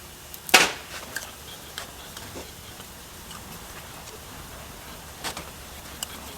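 A single sharp knock about half a second in, then a few lighter scattered clicks and taps over a faint steady hum.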